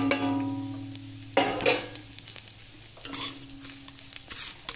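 Whole spices (cumin, bay leaf, cardamom, dried chilli) frying in oil in a kadai, sizzling lightly while a metal spatula stirs and scrapes them. The spatula knocks on the pan at the start and again about a second and a half in, and the pan rings briefly after the knocks.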